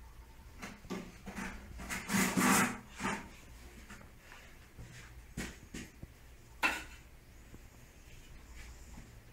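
A gloved hand wiping a wooden window frame with a cloth: a run of short rubbing strokes in the first few seconds, then a single sharp knock about two-thirds of the way through.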